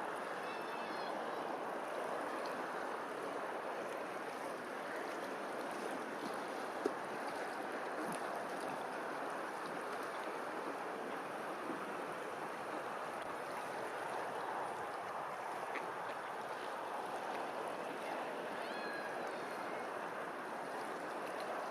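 Steady rush of running water, with a few faint high chirps near the start and near the end.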